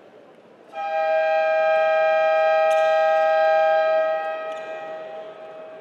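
Basketball arena buzzer sounding one long, steady tone. It starts suddenly about a second in, holds for about three seconds, then dies away in the hall's echo.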